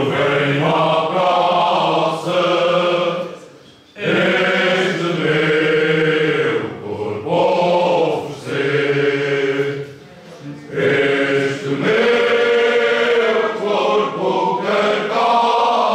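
Group of men singing Cante Alentejano a cappella: slow, long-held phrases sung together by several voices, with brief breaths between phrases about four seconds in and again about ten seconds in.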